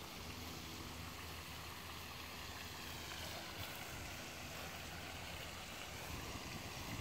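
Steady outdoor background noise: an even hiss over a faint low hum, with no distinct events.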